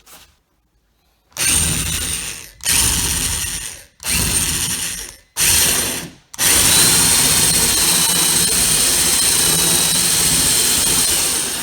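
Power drill with a 2-inch bit boring the lock hole through a door. It runs in four short bursts of about a second each, then in one steady run of about five seconds with a high whine.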